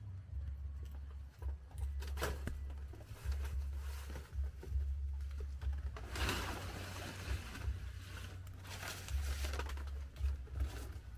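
Rustling of banana leaves in three swells, about two, six and nine seconds in, over a low rumble that comes and goes.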